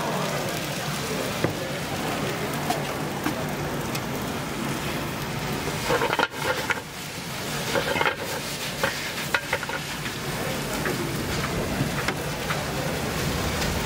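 Pad thai rice noodles sizzling and frying in a wok over a gas burner as they are stir-fried, with the metal tongs clicking and scraping against the pan. The sound briefly drops out about six seconds in.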